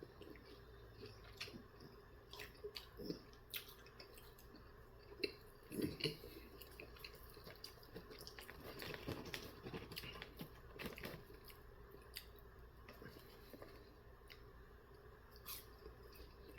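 A person chewing garlic parmesan sauced chicken nuggets close to the microphone: faint mouth sounds with many small scattered clicks, and a couple of louder ones about five to six seconds in.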